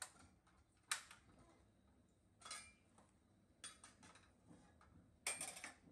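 Metal spatula clinking and tapping against a steel wok in a few short, separate strokes: a sharp clink about a second in, lighter taps later, and a short clatter near the end.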